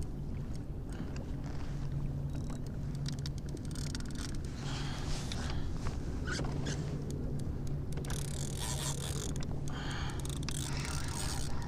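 Spinning reel being cranked steadily as a hooked striped bass is reeled in, a rasping gear whir over a low, continuous hum.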